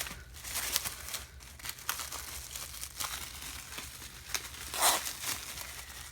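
Plastic wrap crinkling and tearing in irregular bursts as it is pulled at on a plastic replica belt, with one louder rip a little before the end. The wrap is stuck on tight and does not come away.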